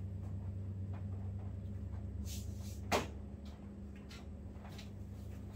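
A large container being fetched and handled: one sharp knock about three seconds in, with a few lighter taps and a brief rustle, over a steady low hum.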